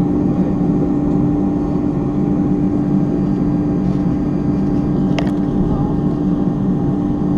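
Airliner cabin noise inside an Airbus A310 taxiing: the engines and cabin systems give a steady low rumble with a constant hum over it. A single small click about five seconds in.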